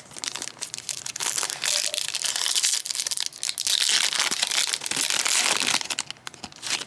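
A trading-card pack wrapper being torn open and crinkled in the hands: dense crackling and tearing for about six seconds, loudest in the second half, then easing off.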